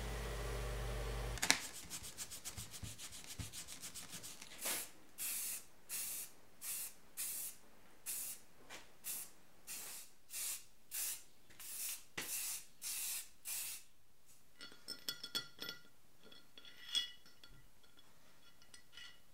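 A bench grinder motor hums steadily, then cuts off. An aerosol spray-paint can rattles fast and then sprays in about fifteen short hissing bursts. Near the end come light metallic clicks of small parts being handled.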